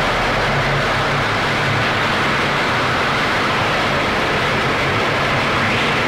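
Noise-music track: a dense, unbroken wall of hiss-like noise at a steady level, with a low rumble underneath.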